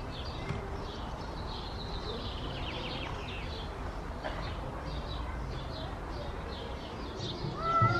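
Small birds chirping in the trees: short calls repeated over and over, with a quick trill about two seconds in, over a steady low background noise.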